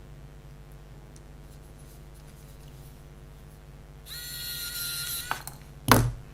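Camera flash unit charging with a high, steady whine for just over a second, cut off by a sharp click, then a loud knock about half a second later.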